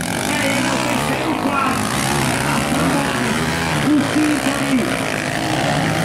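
Several motocross bikes' engines running together at race pace, revving up and down as a pack of dirt bikes rides through the track's turns.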